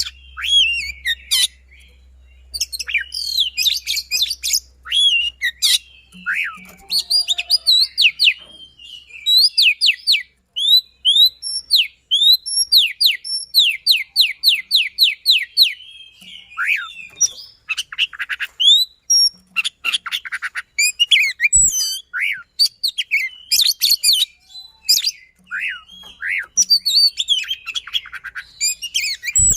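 Oriental magpie-robin (kacer) singing fast and without pause, mixing whistled and harsh chirping phrases. In the middle it delivers a quick run of evenly repeated notes.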